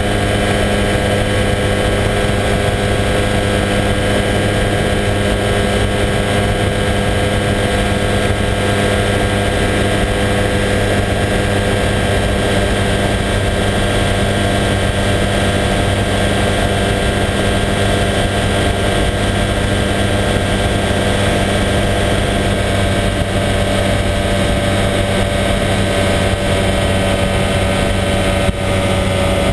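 Motorised hang-glider (weight-shift microlight trike) engine and propeller running steadily in cruise flight, with a heavy rush of wind over the microphone.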